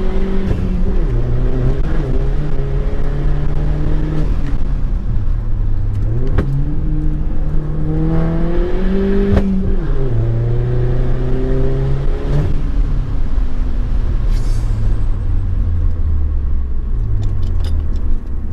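2012 Chevy Cruze's four-cylinder engine, worked hard through an autocross course: revs climb and fall repeatedly as the driver lifts and changes gear, then it settles lower and winds down near the end.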